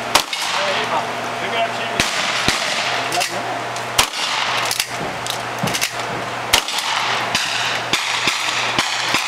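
Rifle fire at a cowboy action shooting stage: four loud shots about two seconds apart, with fainter clicks and knocks between them.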